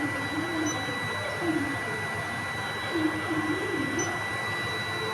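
Electric motor of a paper cutting machine running steadily: a constant whir with a high, steady whine.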